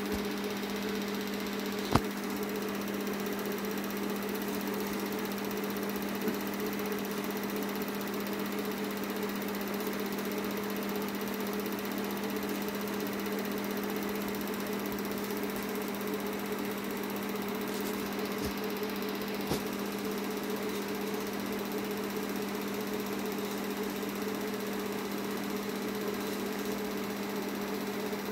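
Film projector running: a steady mechanical whirr with a constant low hum, and a single sharp click about two seconds in.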